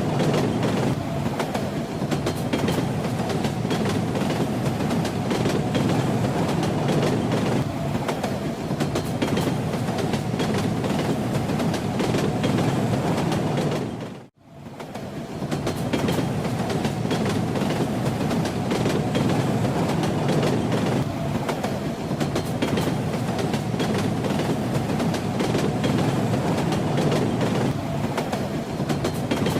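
Steady rumble and rattle of a moving train, with the wheels clicking over the rails. About halfway through, the sound briefly dips almost to silence and comes straight back.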